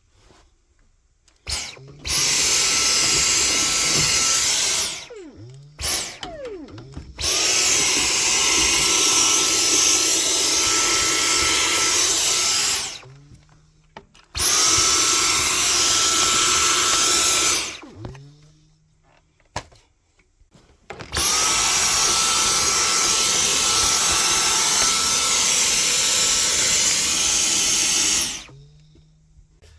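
Vacuum cleaner switched on and off four times, each run lasting a few seconds: a whine rises as the motor spins up to a steady rushing noise, then falls away as it is switched off.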